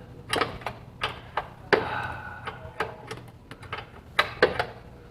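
Hand ratchet clicking in short, irregular strokes as a long engine stud is slowly backed out of the block, over a faint steady hum.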